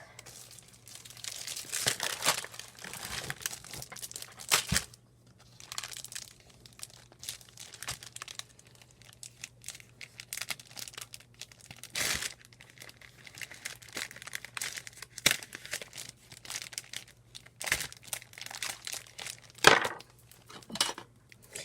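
Packaging being worked open by hand: crinkling and tearing, irregular throughout, with a few sharp clicks.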